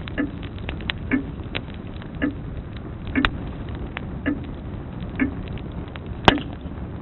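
Grandfather clock ticking about once a second over a fireplace fire crackling and popping, with one loud sharp crack near the end.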